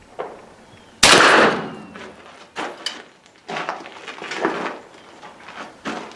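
A Hatfield .410 single-shot break-open shotgun fires once about a second in, a single sharp report with a short echo, shooting a handloaded 00 buckshot shell. After it come several lighter clicks and knocks as the action is broken open and the spent hull is handled.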